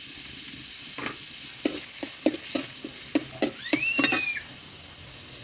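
A metal spatula stirring and scraping against a kadai in a quick run of about ten strokes, over the steady sizzle of bay leaves, dried red chillies and panch phoron frying in hot vegetable oil. A short rising squeal comes near the end of the stirring.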